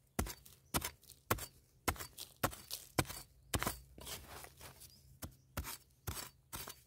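A metal digging blade chopping repeatedly into dry, hard, stony soil, about two strikes a second, loosening earth around wild yam tubers.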